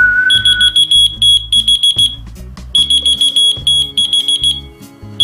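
A short whistled note, then a whistle-activated key finder answers with rapid, shrill electronic beeping, about six beeps a second. The beeping comes in two bursts of roughly two seconds with a brief pause between, and a third burst starts right at the end.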